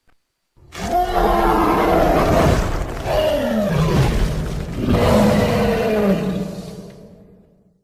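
Triceratops roar sound effect: a long, loud growling roar whose pitch falls away in three drawn-out moans, fading out near the end.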